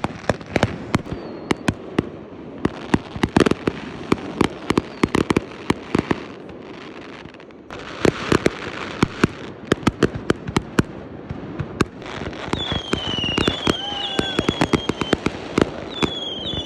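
Fireworks going off in quick succession: dense popping and cracking with louder bangs mixed in, and a short lull near the middle. In the last few seconds high whistling tones join the bangs, gliding slightly down in pitch.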